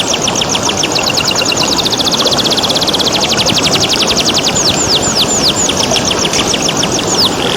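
Domestic canary singing: a run of quick descending whistled sweeps that speeds into a rapid trill about two seconds in, then slows back to separate sweeps. Under it runs a steady rush of flowing water.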